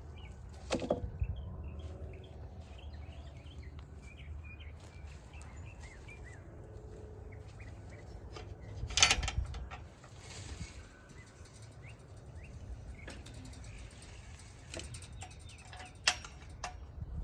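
Small birds chirping repeatedly over a steady low rumble, the chirps thinning out after about six seconds. A loud thump about nine seconds in, with smaller knocks just under a second in and near the end.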